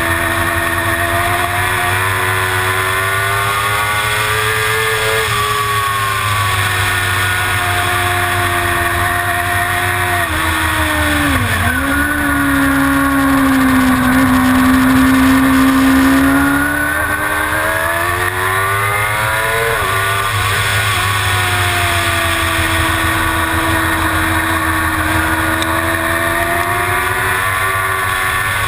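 Suzuki GSX-R750 inline-four race engine at racing speed. Its pitch repeatedly climbs under acceleration and falls through gear changes, with a quick sharp drop on downshifts about a third of the way in. It then holds loudest at one steady pitch for a few seconds before climbing again.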